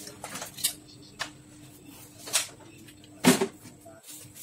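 A few short clicks and knocks of tools and parts being handled inside an opened photocopier during disassembly, the loudest about three seconds in, over a faint steady hum.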